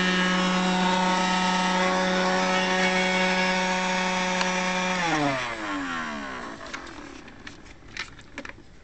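Small electric motor of a cheap battery-powered robot vacuum running with a steady whine, then switched off about five seconds in and winding down in pitch as it stops. A few faint plastic clicks follow as the unit is handled.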